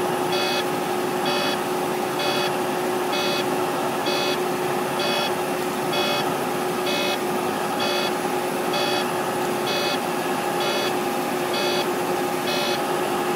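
Volvo semi truck's dashboard warning buzzer beeping over and over, about once a second, over the steady drone of the engine inside the cab. It is a stop warning that keeps going off while driving, which the mechanic puts down to a sensor gone bad.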